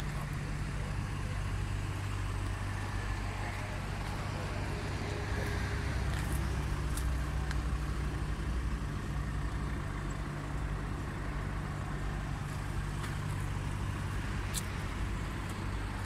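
A motor vehicle engine idling steadily, a low even hum, over a wash of road traffic, with a few faint light ticks.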